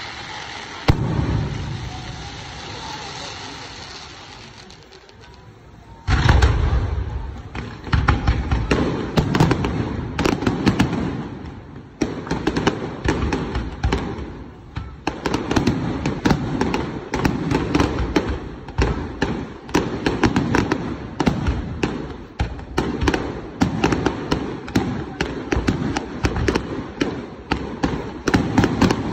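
Fireworks display: a single loud bang about a second in, fading away over a few seconds. From about six seconds in comes a continuous barrage of rapid bangs and pops.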